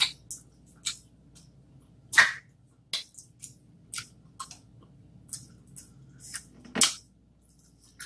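Close-miked eating of a seafood boil by hand: scattered wet mouth clicks and smacks, with two louder ones about two seconds in and near the end.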